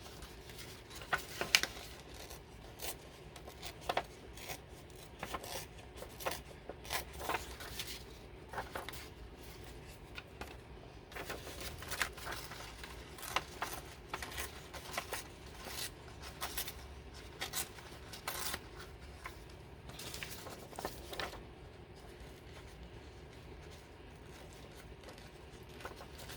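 Paper and craft supplies being handled on a work table: scattered rustles and light clicks for most of the time, stopping about 21 seconds in.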